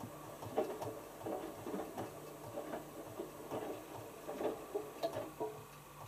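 Hotpoint HF8B593 front-loading washing machine tumbling a small load of wet cottons: the laundry slaps and splashes in the water in irregular bursts as the drum turns, dying down near the end, over a faint steady machine hum.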